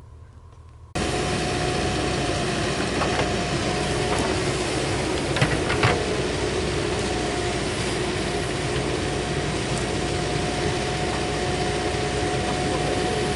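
Heavy machinery's diesel engine running steadily, with a constant drone that starts about a second in. A couple of short knocks sound near the middle.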